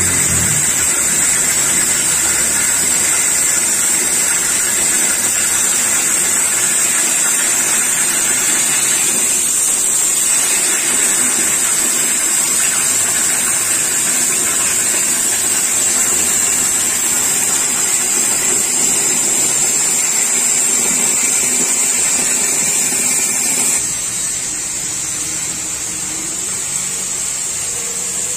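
Oxy-fuel cutting torch on a CNC flame-cutting machine, a loud steady hiss of the gas jet cutting steel plate. About three-quarters of the way through, the hiss drops a little and changes character.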